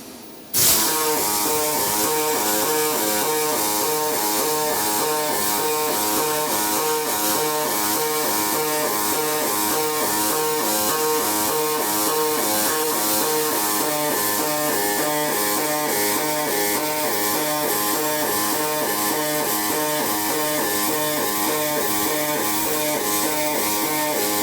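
Double-pulse MIG welding arc on aluminium, from a Greatway NB-280M welder: a loud, crackling buzz that strikes up abruptly about half a second in and cuts off near the end. Its pitch warbles back and forth in a regular rhythm of a little under two beats a second, the double-pulse frequency of 1.7 Hz.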